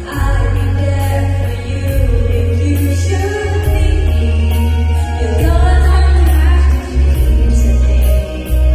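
A song with a voice singing the melody over a backing track with a heavy bass line and a steady beat.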